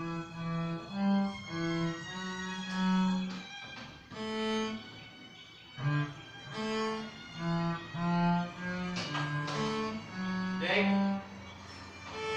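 Cello played with a bow: a slow line of separate held notes, about two a second, with a brief pause about five seconds in.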